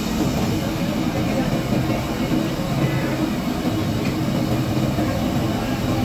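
Samosas deep-frying in a wide karahi of hot oil: a steady bubbling sizzle over a low, even rumble. A faint tap comes about four seconds in, as a slotted skimmer goes into the oil.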